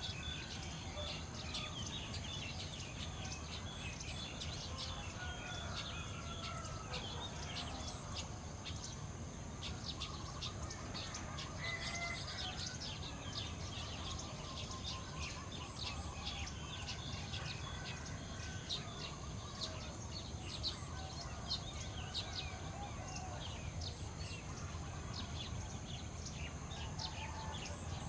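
Many small birds chirping in quick, overlapping calls, with some longer, lower calls mixed in, over a steady low hum and a steady high hiss.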